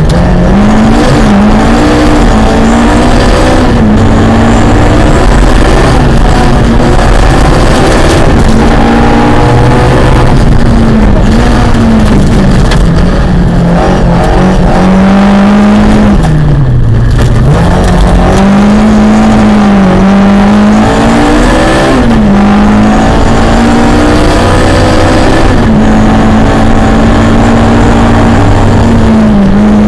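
1975 Ford Escort Mk2's Cosworth BDA twin-cam four-cylinder engine, heard from inside the cabin, driven hard on a gravel rally stage. The revs climb and drop back again and again through gear changes and lifts, with one deep drop in the middle. Gravel noise from the tyres and underbody runs beneath the engine.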